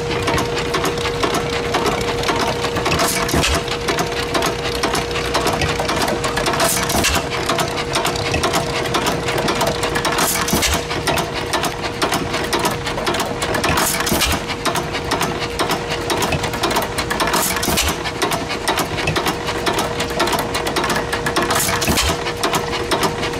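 Antique one-cylinder gas engines running with their flywheels turning belt-driven water pumps: a steady mechanical clatter, with a sharper burst about every three and a half seconds.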